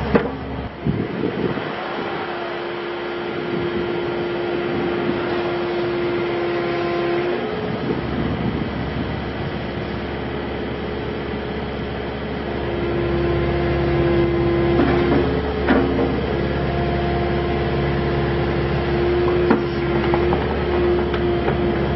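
2013 Kubota KX080-4 excavator working its boom and bucket: the diesel engine runs steadily under a hydraulic whine that comes in about two seconds in, drops away, and returns stronger about halfway through. A few sharp knocks come from the moving arm and bucket.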